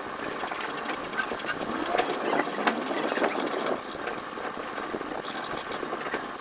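Indistinct voices, loudest between about two and four seconds in, over a steady background noise.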